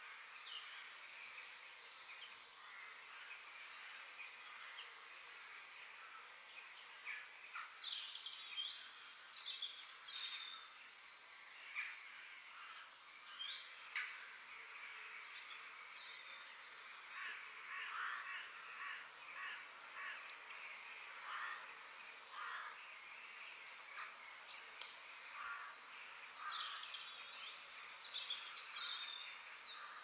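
Forest ambience: many birds chirping and calling over a steady high background hiss, with the calls coming thicker from about eight seconds in.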